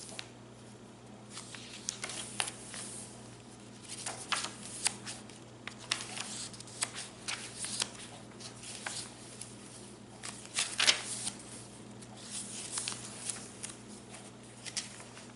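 Paper pages of a handmade junk journal rustling and crinkling as they are turned and handled, in irregular short bursts with the sharpest crackles around eleven seconds in, over a faint steady hum.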